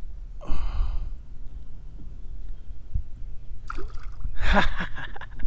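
A bass released by hand splashes at the water's surface as it kicks away, loudest about four seconds in, over a low rumble.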